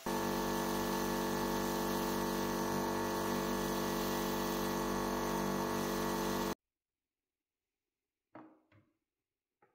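Bench grinder spinning a wire brush wheel: a steady motor hum with a hiss over it, which cuts off abruptly about two-thirds of the way in. Later come a few light knocks of iron parts set down on a wooden table.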